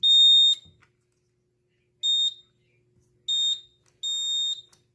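EST iO64 fire alarm control panel's piezo buzzer beeping shrilly: four single-tone beeps of uneven length and spacing. The panel is freshly powered up and reporting a NAC 1 trouble.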